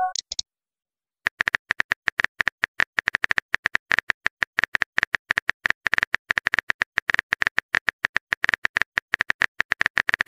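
Smartphone keyboard typing sound effect: rapid key-tap clicks, several a second, starting about a second in and running on as a message is typed out. It opens with the last of a short message-alert chime.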